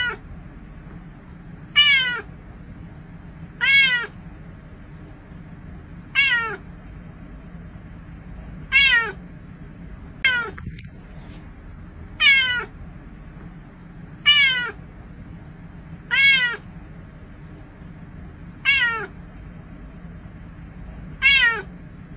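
A cat meowing over and over, about one meow every two seconds, each meow falling in pitch, over a steady low hum.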